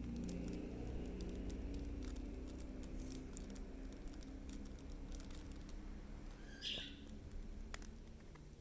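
Faint ticks and rustles of a trading card being worked into a rigid plastic top loader, over a steady low hum. A short high squeak comes near the end.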